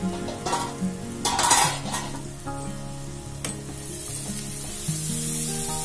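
Chopped onions sizzling in hot oil in a pan while a wooden spatula stirs and scrapes through them. The scraping is strongest in the first two seconds, and the sizzle grows louder near the end as the onions fry toward golden brown.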